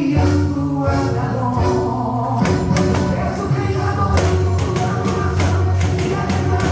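Pandeiro (Brazilian frame drum with jingles) played in a steady rhythm along with gospel music with singing, the jingles shaking on each stroke.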